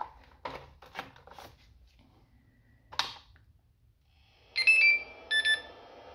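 A few handling clicks as the connector is plugged in and the start button is pressed. Then the Traxxas EZ-Peak Dual charger beeps twice in quick succession as it starts charging the revived LiPo battery, and a steady whir starts with the beeps and keeps going.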